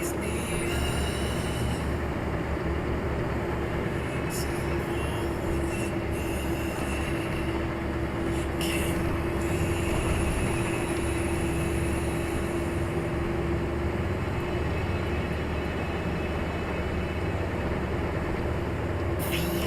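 Heavy vehicle running steadily on the move, a continuous engine and drivetrain drone with low rumble and a steady whine held at one pitch. A few faint clicks and rattles come through above it.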